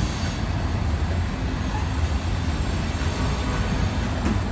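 Freight cars of a passing mixed manifest train rolling by: a steady rumble of steel wheels on rail.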